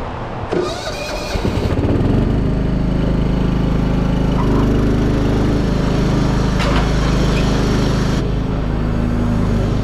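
An engine picks up over the first two seconds, then runs at a steady speed.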